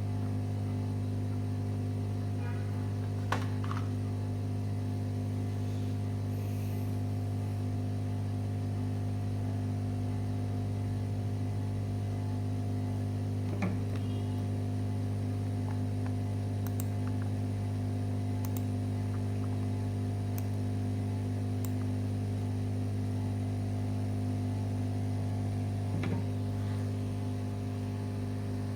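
Steady electrical hum with a faint hiss, broken by a few light clicks: one about three seconds in, one near the middle and one near the end.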